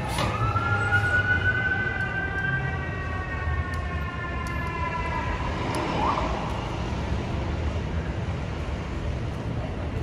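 Fire truck siren winding up sharply at the start, then slowly winding down in pitch over about five seconds, over a steady low rumble of traffic.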